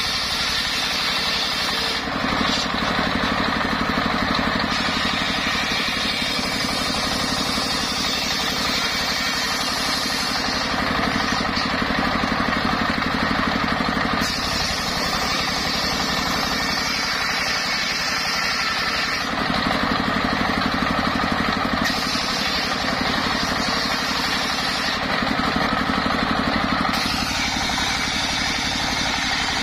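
Stationary single-cylinder diesel engine running a belt-driven circular saw as it rips sengon logs into square beams. The engine and blade noise is continuous and changes abruptly several times.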